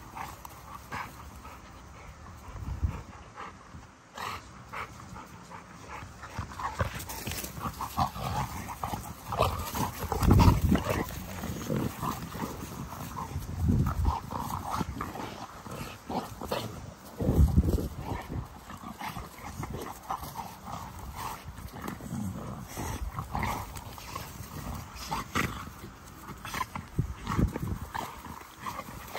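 Young American Bully dogs play-fighting: dog vocal sounds and scuffling come in short, irregular bursts, with a few louder, deeper bursts about a third to two thirds of the way through.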